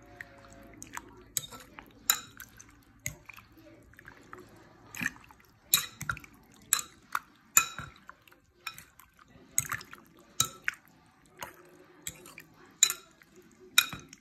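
A metal fork stirring jelly cubes through a creamy milk mixture in a bowl, clinking sharply against the bowl about once or twice a second, at irregular intervals, with wet liquid sounds between.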